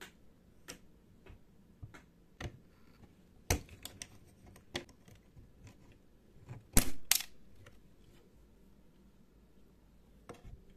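Scattered small clicks and taps of metal tweezers on a small plastic clip at the hub of a video tape machine's reel spindle as the clip is pried off, with the loudest cluster of clicks about seven seconds in.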